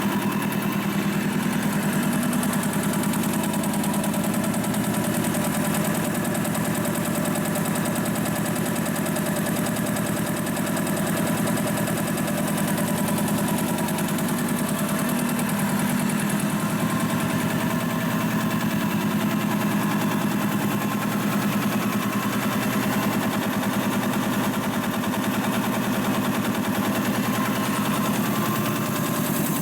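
DeVilbiss DevAir 445 two-stage industrial air compressor, freshly rebuilt with a new piston, running steadily under load as it pumps its tank up toward cutoff, with a fast, even pulsing beat.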